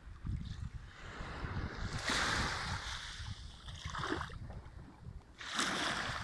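Small sea waves breaking and washing up a sandy beach, in louder surges about two seconds in and again near the end, over a low rumble of wind on the microphone.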